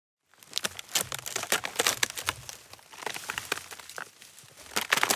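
Dense, irregular crackling and crinkling clicks that start about a third of a second in and keep going, thinning out a little around the fourth second.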